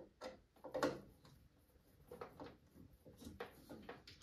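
Faint, irregular clicks and light taps of a T20 screwdriver working self-tapping screws out of the plastic circulator pump assembly inside a combi boiler.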